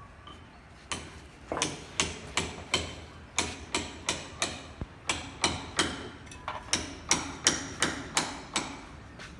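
Hammer blows struck in a steady, rapid series, about three a second, starting about a second in and stopping shortly before the end, each with a sharp ringing attack.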